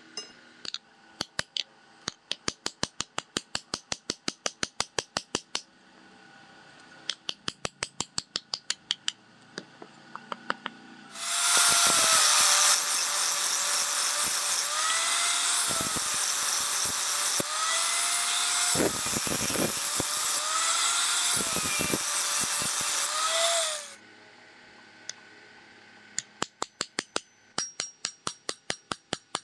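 Angle grinder with a sanding disc running against a wooden handle block for about twelve seconds. Its motor pitch dips several times as it is pressed into the wood. Before it come trains of quick, even taps, and near the end a hammer taps nails into the block at about three or four strikes a second.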